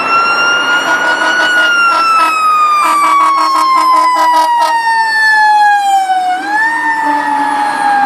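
Fire truck siren: one long wail that rises a little, then slowly falls, with a short upward swoop near the end. Quick plinking notes sound alongside it through the middle.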